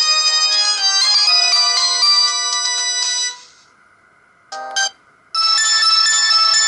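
Stock ringtones of a Samsung GT-E2120 mobile phone: one synthesized melody in several voices stops a little after three seconds in, two short blips follow about a second later, and a different melody starts just past five seconds.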